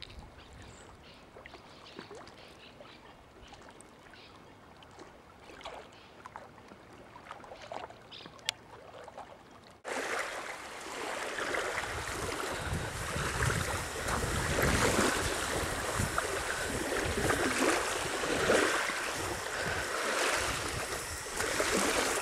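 Faint outdoor ambience with a few light clicks, then, about ten seconds in, an abrupt change to small waves washing onto a sandy lagoon shore, with wind rumbling on the microphone.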